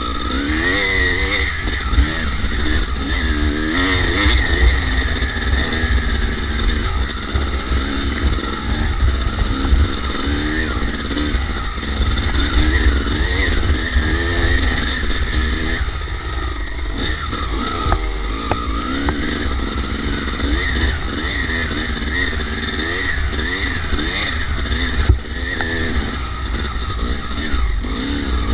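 Kawasaki KX250 dirt bike engine running under load, its revs rising and falling over and over as the throttle is worked. A steady low rumble sits underneath.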